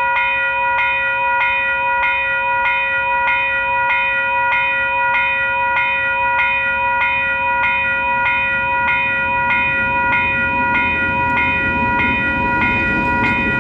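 Level crossing alarm bells ringing steadily at about two strokes a second, while KiwiRail DF- and DX-class diesel locomotives running light approach and cross. The locomotives' engine and wheel rumble grows louder in the last few seconds as they pass.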